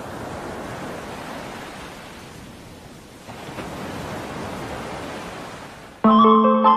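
A rushing, surf-like noise with no pitch swells, fades a little about three seconds in, swells again, then cuts off about six seconds in as music with plucked notes starts.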